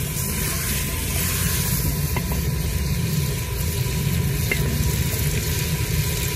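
Chicken pieces sizzling as they fry in hot oil in a clay pot, with a spoon stirring through them at first.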